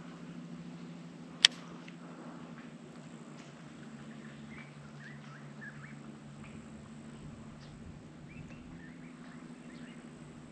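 Quiet mangrove creek ambience: faint, scattered short bird chirps over a steady low hum, with one sharp click about one and a half seconds in.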